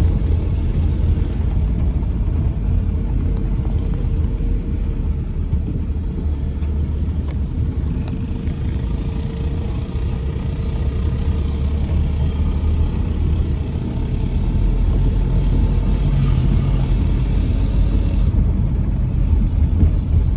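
2012 Kia Carnival minivan under way, heard from inside the cabin: a steady low rumble of engine and road noise.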